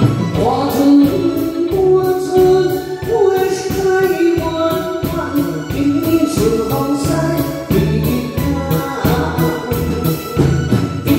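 A woman singing a slow melody into a microphone over a live band of drums, electric guitar and keyboards, with a steady beat.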